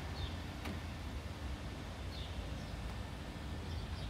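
Outdoor background noise: a steady low rumble with a faint hum, and a few faint high chirps.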